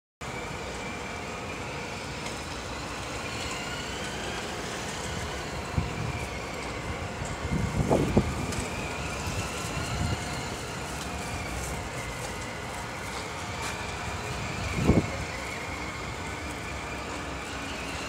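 Toy RC Raptor pickup truck's electric motor whining steadily, its pitch slowly rising and falling as the truck speeds up and slows. Low thumps come twice, about halfway through and again later.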